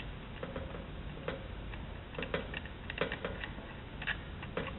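Rosin-core 60/40 solder melting onto a twisted copper wire splice under a hot soldering iron tip, the flux crackling and spitting in faint, irregular little ticks, with a steady low hum underneath.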